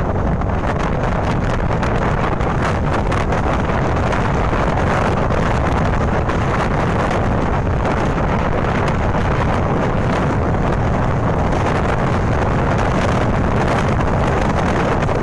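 Strong wind blowing steadily across a phone microphone, a loud continuous rumble and rush.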